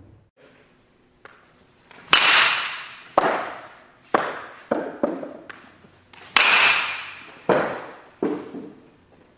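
A run of about eight sharp baseball practice impacts a second or so apart, each ringing on and dying away as if echoing in a large indoor space.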